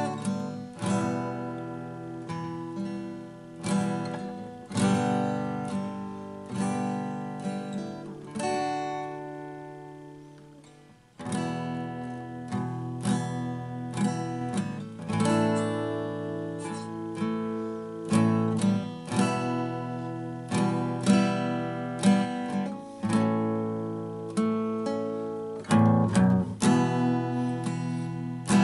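Acoustic guitar strummed by hand, slow chords struck about once a second and left to ring. The playing fades almost out about eleven seconds in, then the strumming starts again.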